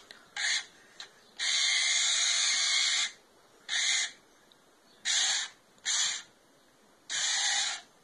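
Small electric drive motors and gearbox of a toy RC tank whirring in short bursts as it is driven: six starts and stops, the longest about a second and a half, the rest brief jabs.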